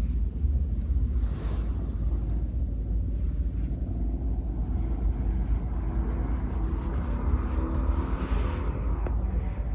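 Low rumble of wind buffeting the microphone, with outdoor traffic noise; a vehicle engine swells and fades in the second half.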